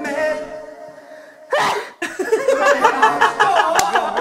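Music fading out, then one loud sneeze about a second and a half in, followed at once by several people laughing and shouting.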